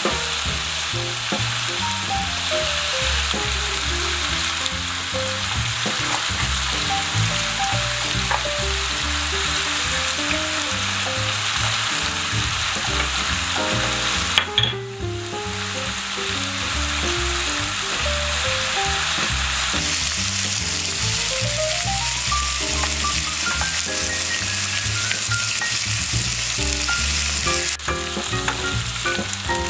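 Thin-sliced beef brisket and sliced garlic sizzling steadily in a hot nonstick frying pan, with a short break about halfway. Light background music plays underneath.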